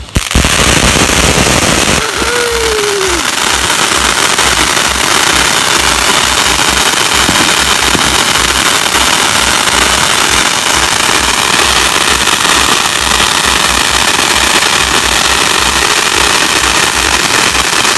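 Large consumer ground fountain firework spraying sparks: a loud, steady rushing hiss with constant crackling that starts at the very beginning and keeps going.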